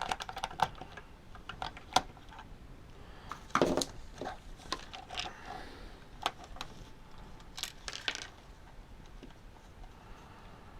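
Irregular small clicks and taps of a screwdriver and small hard parts on a workbench as the plastic case of a handheld game console is worked on and its screws taken out, with a louder cluster of clatter near the middle.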